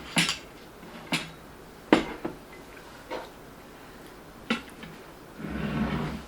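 Cutlery and dishes clinking at a table: about six sharp knocks spread over several seconds, then a brief rustling noise near the end.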